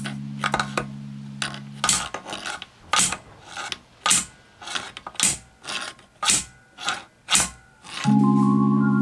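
A steel F-clamp being taken apart: a regular series of sharp metallic clicks and scrapes, a loud one about once a second with softer ones between. Background music plays at the start and again near the end.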